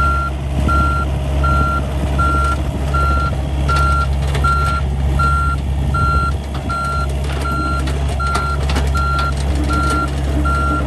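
John Deere 50G rubber-track mini excavator's travel alarm beeping on one steady tone about every three quarters of a second while the machine tracks along. Under it runs the steady low hum of its diesel engine, with scattered clicks and clanks.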